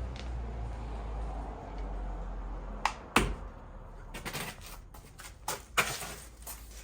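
Sharp metallic clicks and knocks of tools and parts being handled while a car's wheel is taken off, a scattered series beginning about three seconds in, over a steady low hum.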